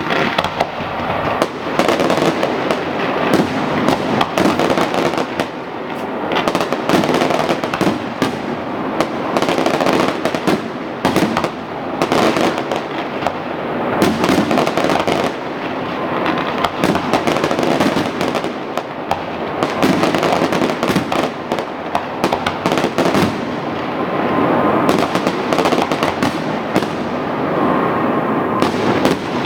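Fireworks going off in a dense, continuous run of bangs and crackling, many shots overlapping one another.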